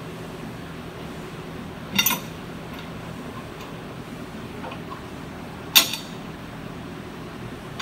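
Two sharp metallic clinks, about four seconds apart with the second louder, as hardware is handled against the round metal end cap of a hydro-excavator's final filter, over a steady low hum.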